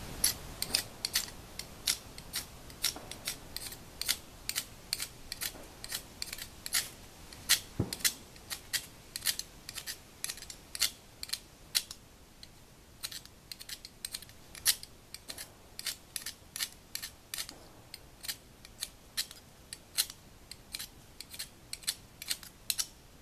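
Quick, sharp scrapes of a striker along a ferrocerium fire-starter rod, about two strokes a second and somewhat uneven, throwing sparks onto a petroleum-jelly cotton ball. The strokes grow a little fainter in the second half.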